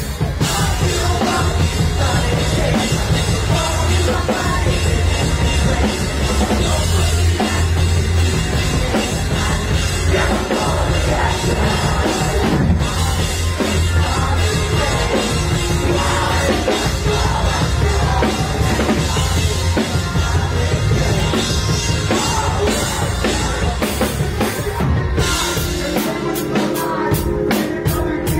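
Live rock band playing loud, with electric bass and a drum kit driving the music.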